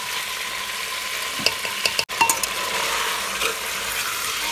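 Sliced potatoes sizzling in oil and masala in a pressure-cooker pot while a steel spoon stirs them. A steady frying hiss runs under a few scrapes and clinks of the spoon against the pot, around the middle.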